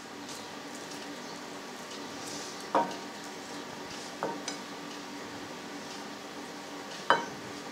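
Hands dredging a chicken thigh in flour on a porcelain plate: faint rubbing and patting, broken by three sharp clinks against the plate.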